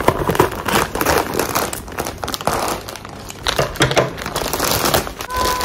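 Clear plastic packaging bag crinkling as it is cut open with scissors and pulled apart by hand.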